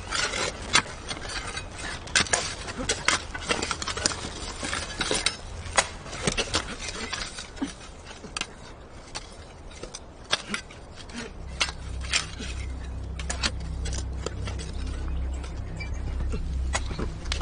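Irregular light clicks and small metallic clinks, some louder than others, with a low steady hum coming in about two-thirds of the way through.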